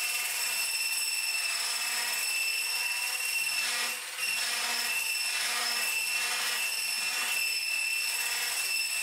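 Electric hand blender with a whisk attachment running steadily with a high whine, beating thick flour batter in a glass bowl. It dips briefly about four seconds in, then picks up again.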